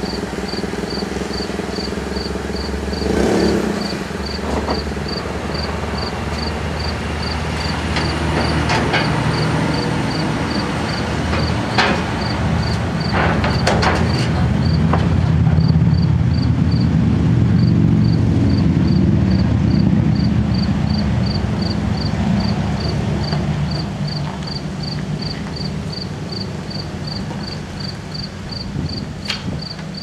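1997 Toyota Corolla's four-cylinder engine running as the car is driven off a trailer, getting louder under throttle in the middle and then easing off, with a few knocks and clunks along the way. A steady high chirp repeats about twice a second throughout.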